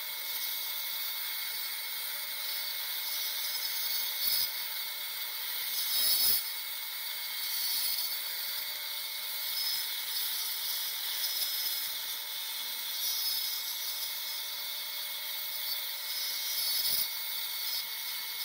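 Dental surgical equipment running in the operatory: a steady high-pitched hiss with a faint whine. Brief louder scrapes come at about four, six and seventeen seconds in.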